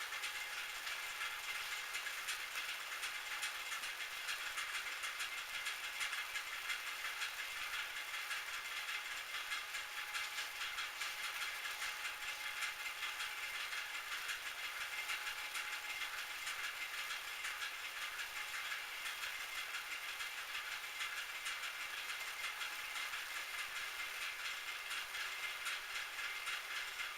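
Metal lathe running steadily: a faint whine under a hiss of fine, rapid crackle with no pause.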